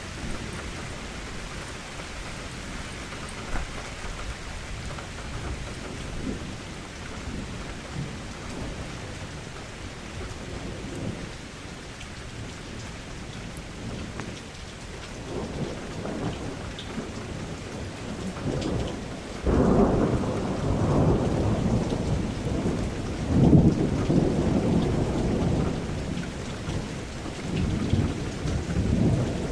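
Thunderstorm: steady rain falling, then a loud, low rolling thunder rumble that breaks in about two-thirds of the way through, swells again a few seconds later and grumbles on near the end.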